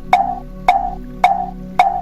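Wooden fish (mõ), the Buddhist temple slit drum, knocked at an even pace of about two strikes a second. Each strike is a short pitched knock that dies away quickly, with a steady low hum underneath.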